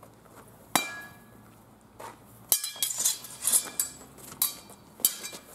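Blunt steel swords clashing in sword-and-buckler sparring, a series of sharp metallic clangs that ring on briefly. There is one hard clang about a second in, then a quick flurry of several clashes between about two and a half and four seconds, and two more strikes near the end.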